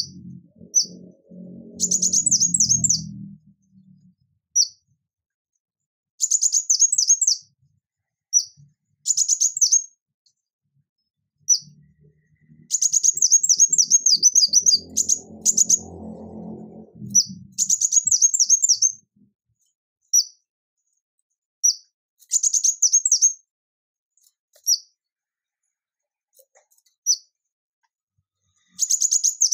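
Male ruby-cheeked sunbird (Chalcoparia singalensis) singing: high, thin single notes alternating with fast trills of short down-slurred notes, each bout about a second long, with a longer run of trills around the middle.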